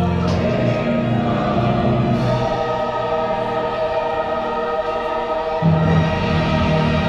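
Orchestral music with a choir singing sustained chords; a low bass part comes in near the end.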